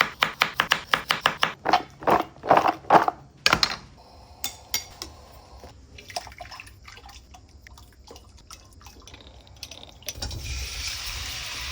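Rapid knife chopping on a cutting board, slowing and stopping after about three and a half seconds. Then a few light clinks of dishes and utensils, and near the end a steady hiss starts.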